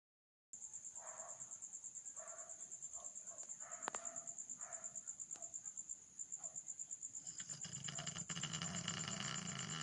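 Dog snoring, with short soft snores in the first half and a longer, louder snore building from about seven and a half seconds in. A steady high-pitched insect trill, pulsing fast, runs underneath.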